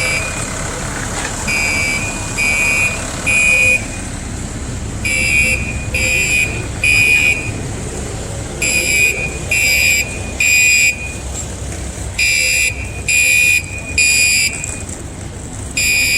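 Building fire alarm sounding the temporal-three evacuation signal: a high electronic horn beeping in groups of three, about one beep a second, with a gap of about a second and a half between groups, repeating four times.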